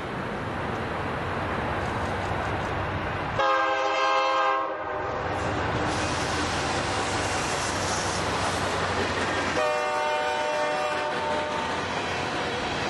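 Diesel locomotive horn from a sound-equipped N scale DCC model train, sounded twice: a blast of about a second and a half some three seconds in, and a longer one of about two seconds near ten seconds in. Under it runs a steady diesel engine rumble with running-train noise.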